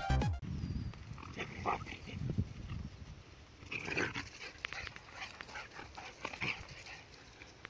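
Saluki giving short, high yips at irregular intervals while running, over a low rumble of wind and handling noise on the phone microphone.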